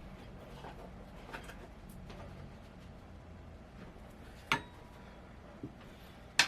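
Small hardware parts being handled: a few light clicks and clinks, with one sharper clink about four and a half seconds in.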